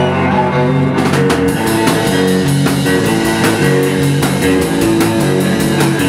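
Rock band playing an instrumental passage: a repeating electric guitar and bass riff, with the drum kit coming in about a second in and keeping a steady beat of regular cymbal and snare strokes.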